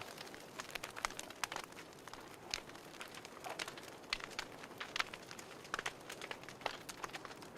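Wood fire crackling: irregular sharp pops and snaps, several a second, over a soft steady hiss.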